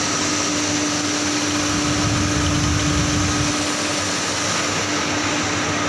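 Steady, loud mechanical drone of factory machinery with a constant hum running through it; a low rumble swells briefly around the middle.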